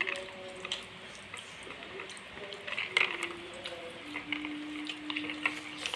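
Quiet scattered clicks and taps from handling skewered snacks, the most distinct about three seconds in, over faint held tones that shift in pitch and hold longest near the end.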